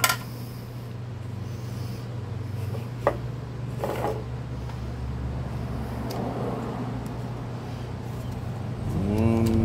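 Hands turning a lawnmower recoil starter pulley and winding nylon starter rope onto it, with a few sharp plastic clicks and some rustling of rope. Under it runs a steady low hum, and a brief rising pitched sound comes near the end.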